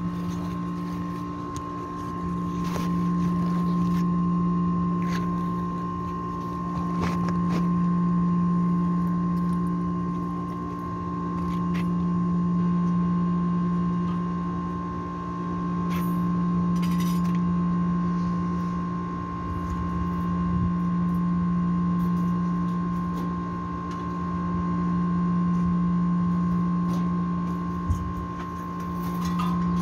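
Steady electrical hum of air-conditioning compressor machinery: a low drone with a thinner whine above it, slowly swelling and fading every three or four seconds. A few light metallic clicks and knocks of tools on the unit, one sharper knock near the end.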